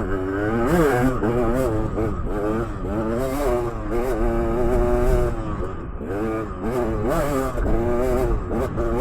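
Dirt bike engine revving up and down on rough single track, its pitch rising and falling again and again with the throttle.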